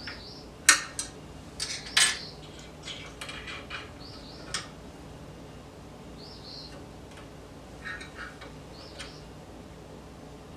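Ringmaster lathe attachment's index plate being adjusted by hand: scattered metallic clinks and clicks, the two loudest about a second and two seconds in, and more in the middle and near the end. Short high chirps recur every couple of seconds.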